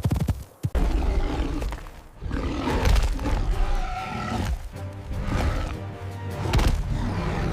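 Background music with large animal roars over it, with strong low rumbling.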